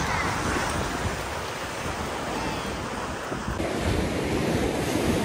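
Ocean surf washing onto the beach, with wind buffeting the microphone in a steady, noisy wash.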